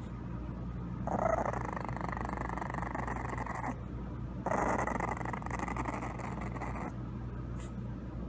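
English bulldog puppy growling twice, each growl rough and lasting about two and a half seconds.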